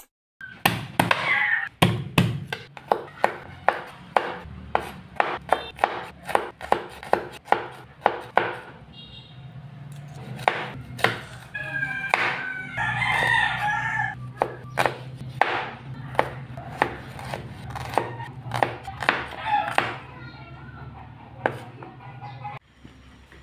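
Kitchen knife chopping a red onion on a wooden cutting board: repeated sharp knocks of the blade against the board, about two to three a second. A rooster crows in the background about halfway through.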